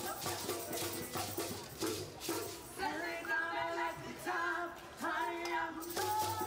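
Live street music: voices singing a melody over hand drums beating a steady rhythm.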